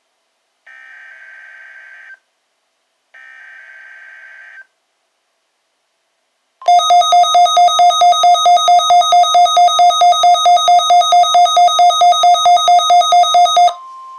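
NOAA Weather Radio test signal: two harsh digital SAME header bursts of about a second and a half each, then a pause. After that, a Midland WR120EZ weather radio's loud alert beeper sounds, pulsing about four times a second for some seven seconds. Near the end it gives way to the quieter steady 1050 Hz warning alarm tone of the broadcast.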